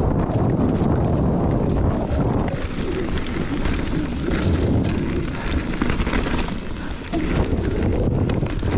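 Wind rushing over the microphone and tyres rolling on a dirt trail during a fast mountain-bike descent, with scattered clicks and rattles from the bike over rough ground.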